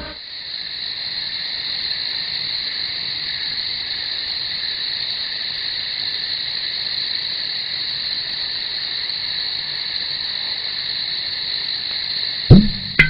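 Steady night chorus of frogs and insects, a continuous high-pitched drone with no break. Near the end, plucked guitar notes come in.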